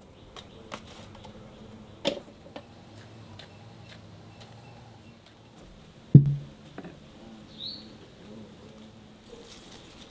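Light handling clicks and knocks, then a solid thud about six seconds in as a bowl is set down on a cloth-covered table.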